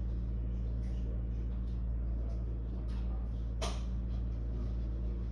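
Steady low hum of an office room tone over faint background noise, with a single sharp click a little past halfway.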